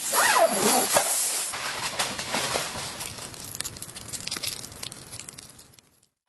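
Blizzard wind hissing, with a wavering, gliding whine in the first second. The wind dies away gradually to near silence just before the end.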